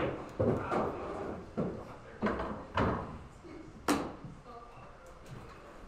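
Pool balls knocking: the cue tip strikes the cue ball, then a string of sharp clacks over about four seconds as the balls hit each other and the cushions. The sharpest knock comes about four seconds in.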